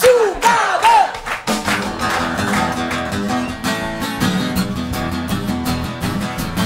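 Audience shouting and whooping, then, about a second and a half in, an acoustic guitar starts strumming chords in a steady rhythm.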